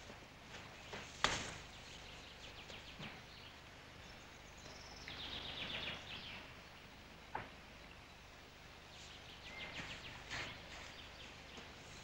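Faint woodland ambience: birds chirping, with a rapid trill about five seconds in, and a few sharp snaps, the loudest about a second in.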